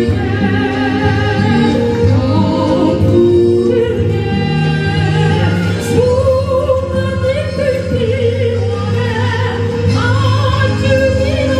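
A female soprano singing in a classical style into a microphone over musical accompaniment. About halfway through she holds a long high note with vibrato.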